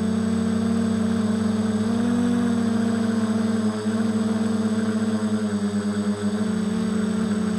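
Multirotor drone's motors and propellers buzzing steadily in flight, the pitch wavering slightly as it manoeuvres.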